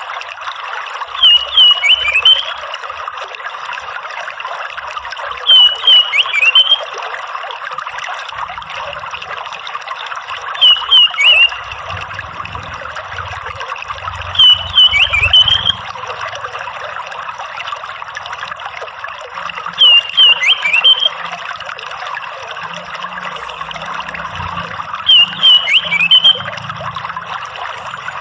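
Orange-headed thrush (anis merah) giving a short call phrase of a few quick high notes, repeated six times about every five seconds, over a steady sound of trickling, running water.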